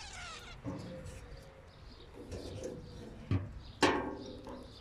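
Knocks and bumps of someone climbing the metal steps into a large excavator, with two sharp knocks, about half a second apart, near the end as the loudest, and short faint vocal sounds in between.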